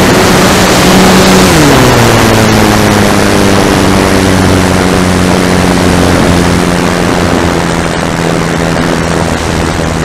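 RC aerobatic plane's propeller and motor drone, heard from on board behind the prop with wind rushing over the microphone. About a second and a half in the throttle is pulled back and the pitch glides down, then holds lower as the plane descends toward the ground on approach.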